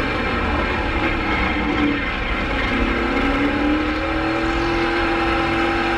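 JR late model race car's engine at speed, heard from inside the cockpit. Its pitch breaks off about two seconds in, then comes back lower and climbs steadily as the car accelerates again.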